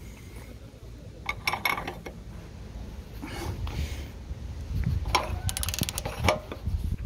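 A hand wrench tightening the nut on the chain-sprocket tensioner of a stand-on aerator: metallic clicks and scrapes in three short bursts, the last and loudest a quick run of clicks about five to six seconds in.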